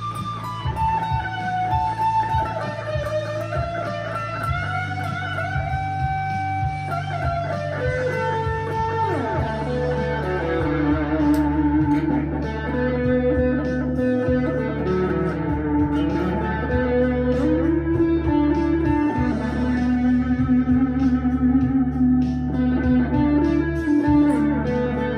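Harley Benton CST-24T electric guitar with P90 pickups, played through a Harley Benton Plexicon pedal and a Blackstar HT-1R amp: a lead line of held notes that bend and slide between pitches, picking up pace in the second half.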